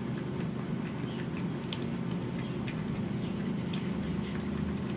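Eggplant in tomato sauce simmering in a frying pan on a gas stove: a steady hiss and bubbling, with a few faint ticks from a spatula in the pan.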